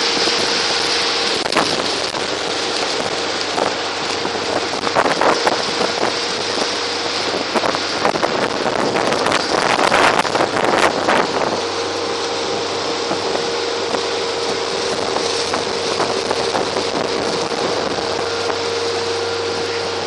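Fishing boat running at speed: a steady engine drone under rushing wind and wake spray, with wind buffeting the microphone. A stretch of louder knocks and gusts comes about halfway through.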